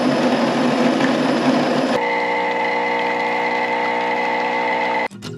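Steady mechanical running noise with a high held tone. About two seconds in it cuts abruptly to a different steady machine hum made of several held tones.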